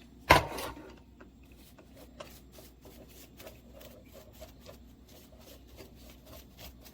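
A sharp knock, then faint rubbing and small clicks as objects are handled.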